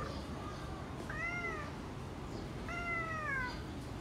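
Domestic cat meowing twice, two drawn-out calls: the first about a second in, rising then falling, the second near the three-second mark, sliding downward.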